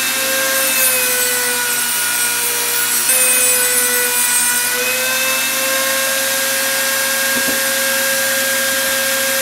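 Handheld rotary tool with a cutting wheel running at high speed, a steady high whine, as it cuts through the crimped metal rim of an inline transmission filter housing; the pitch dips slightly at moments as the wheel bites in.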